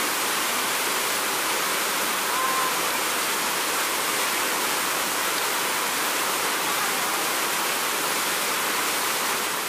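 Steady rush of white water pouring over a waterfall cascade, fading out near the end.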